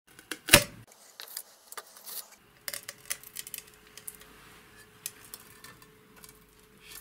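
Sheet-metal cover of a gyro unit's case being pried free of its glue and lifted off: a sharp metallic clack about half a second in, then scattered light clicks and rattles as the cover is handled.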